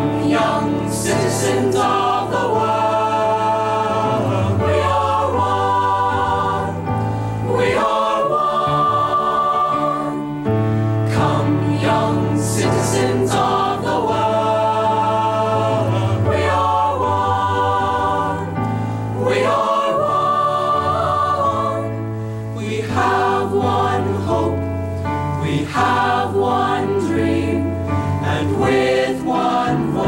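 Mixed high-school choir of young men and women singing a Christmas song, the voices continuous over sustained low notes.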